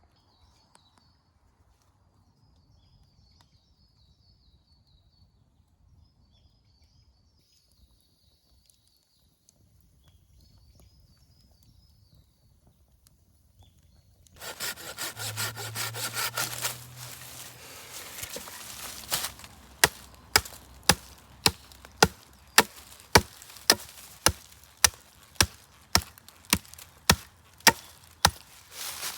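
Wood being worked by hand: about halfway through, a few seconds of fast sawing strokes, then a steady run of sharp wooden knocks, about two a second. Faint high chirping trills before the sawing starts.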